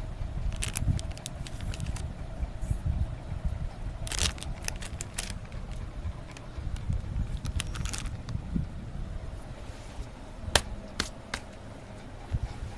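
Handling noise: scattered sharp clicks and taps, in small clusters a few seconds apart, over a steady low rumble.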